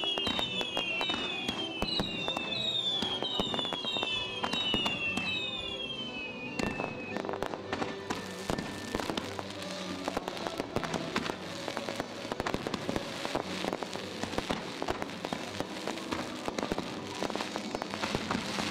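Fireworks display: shells bursting with sharp bangs and dense crackling. Over the first six seconds or so a run of high whistles sounds, each falling in pitch, about one every 0.7 s. After that the whistles stop and thick crackle takes over.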